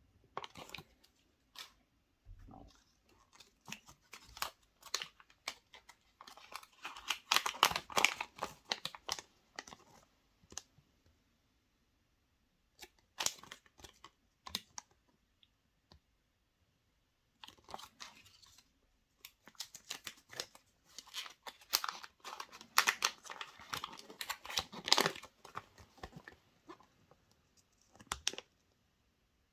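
Chocolate surprise egg being unwrapped by hand: foil wrapper crinkling and tearing, with small cracks and clicks. It comes in two busy stretches with quieter pauses between.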